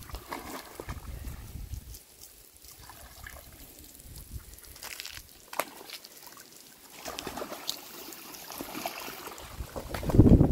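Water from a hose spraying and splashing over a rhino, trickling and sloshing, with a sharp click about halfway. Wind buffets the microphone near the end.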